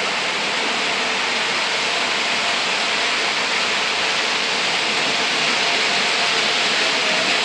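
O gauge model trains running on three-rail track: a steady rolling rumble and hiss from the wheels and motors.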